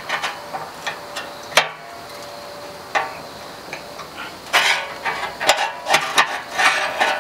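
Homemade steel sliding door latch being worked back and forth by hand: a few sharp metal clicks and knocks, then from about halfway a quick run of scraping slides and clacks as the bolt moves freely in its guide.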